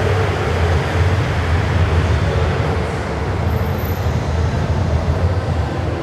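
Railway station hall ambience: a steady low rumble with an even wash of background noise.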